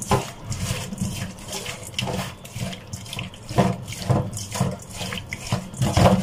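Hands swishing and rubbing a pile of small mola fish in a basin of water as they are washed: irregular splashing and sloshing, with a louder splash near the end.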